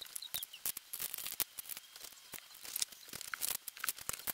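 Plastic makeup items clicking and tapping as they are handled and set into clear acrylic organiser trays, with light rustling in between: many small, irregular clicks.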